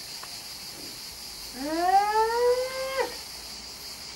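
A dog's long drawn-out whining call, rising in pitch and then held for about a second and a half before breaking off sharply.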